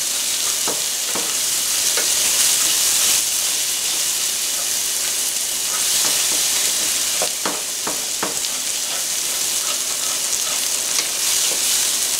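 Mushrooms, shallots and garlic sizzling steadily in a stainless steel skillet over medium-high heat, with a wooden spoon scraping and stirring across the pan bottom to lift the browned bits, the scrapes clustered about a second in and again around seven to eight seconds in.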